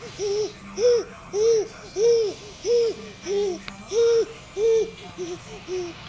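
Baby vocalising in a rhythmic series of about ten short cooing calls, each rising and falling in pitch, at a steady pace of nearly two a second; the last few near the end come shorter and softer.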